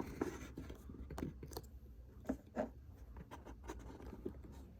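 Hands rummaging through and handling accessories taken from a box: scattered small clicks, scrapes and rustles, with two louder knocks a little past the middle.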